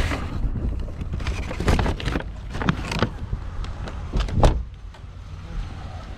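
Car sounds: a low rumble with several knocks and clunks, the loudest about four seconds in, after which it goes quieter.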